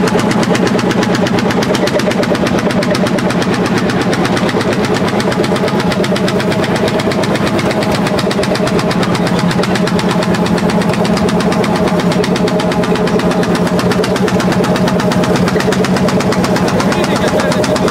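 Landini L55 hot-bulb tractor's single-cylinder two-stroke engine working under load as it pulls a plough, its exhaust beating in a rapid, even stream. It is loud and steady throughout.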